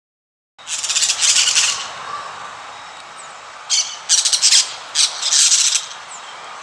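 Parrot squawking: harsh, raspy screeches starting about half a second in, one long burst and then a cluster of four shorter ones a few seconds later.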